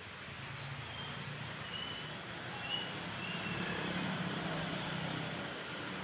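Outdoor ambience with a steady hiss. A low rumble builds, peaks past the middle and eases off, and a few short high chirps sound in the first half.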